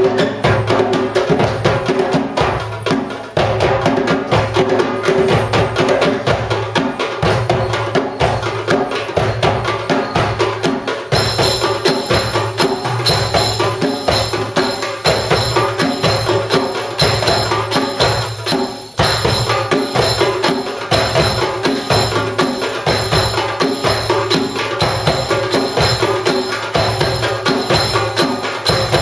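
Live ensemble of darbukas and other hand drums playing a fast, steady belly-dance rhythm, with two brief breaks in the beat. Partway through, a metallic jingling joins and rings over the drumming.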